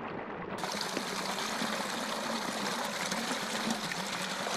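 Water draining out of a flooded rice paddy, pouring in thin streams over the terrace edge. It starts muffled, then about half a second in brightens into a steady rush of splashing water.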